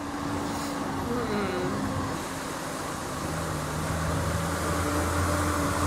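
Diesel engine of a road-train truck running as it drives through floodwater across a causeway, with a steady rush of water. The sound grows slowly louder as the truck approaches.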